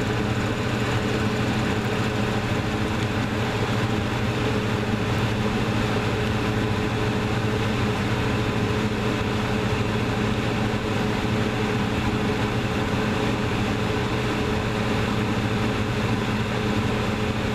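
Thermostat-controlled attic exhaust fan running steadily: an even electric motor hum with the rush of air being pulled through the fan.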